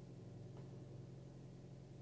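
Faint, steady low hum of a 2018 Honda CR-V's engine idling, heard from inside the cabin about a minute after a cold start.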